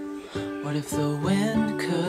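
Background music led by a plucked acoustic guitar, several notes a second.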